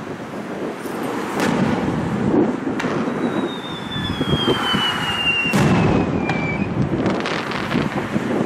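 Aerial firework shells launching and bursting, with several sharp bangs over a low rumble. In the middle, a thin whistle falls slowly in pitch for about three seconds.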